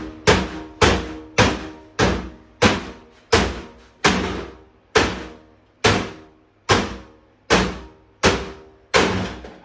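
Hammer blows on a 1988 GE 26CT622 CRT television's cabinet, about thirteen heavy strikes at a steady pace of roughly one every two-thirds of a second, each ringing briefly before the next.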